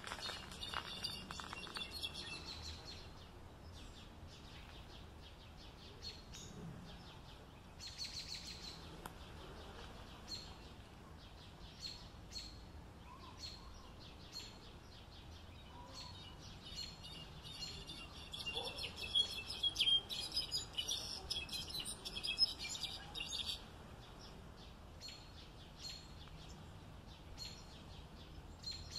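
Songbird singing: bursts of rapid, high twittering with short scattered chirps between them. The longest and loudest phrase lasts about six seconds in the second half, over a faint steady background hiss.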